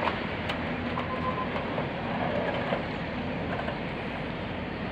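Railway wagons rolling past on the track: a steady rumble of wheels on rail with a few sharp clicks and knocks.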